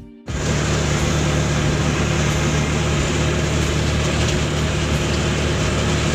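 Steady engine drone and road noise heard from inside a moving vehicle, starting abruptly a moment in.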